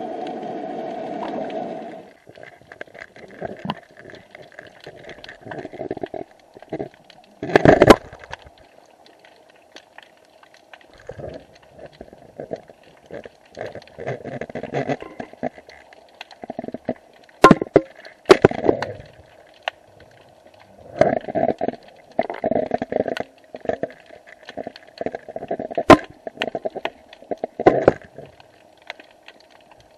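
An underwater action camera's waterproof housing knocking and rubbing as it is lowered through the water on a line: irregular muffled knocks and scraping, with a few sharp clicks, the loudest about eight seconds in and again near 17 and 26 seconds. A steady noise at the start cuts off suddenly about two seconds in.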